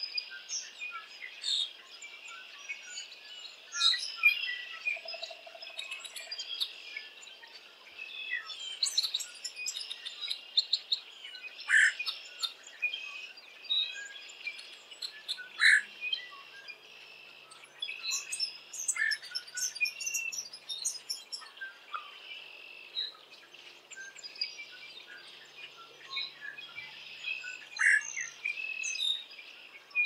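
Outdoor birdsong: many short chirps and calls from several birds scattered throughout, over a steady high-pitched background hum.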